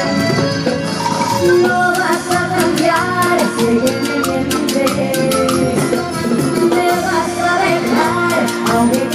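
Cumbia band playing live through a stage sound system, with a steady percussion beat under pitched instruments and a singer's voice.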